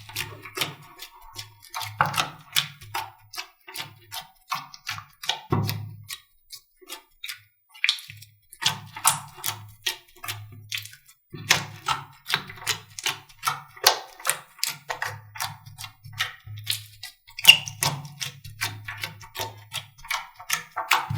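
Slime being pressed and worked by hand, giving a dense, irregular run of crackling clicks and pops, with a low hum underneath that comes and goes.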